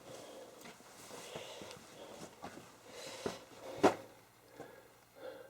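Footsteps and scuffing on rock while scrambling over rough ground, with scattered small knocks and one sharp knock about four seconds in.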